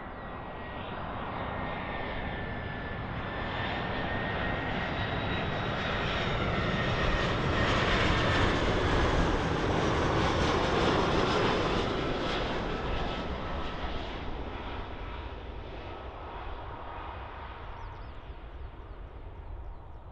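Airliner passing close by: its engine noise swells to a peak about halfway through and then fades away, with a whine that falls in pitch as it goes past.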